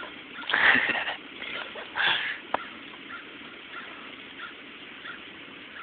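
A dog gnawing on the bare ribs of an animal carcass: two loud crunching bursts about half a second in and two seconds in, a sharp crack just after, then faint scattered ticks of chewing.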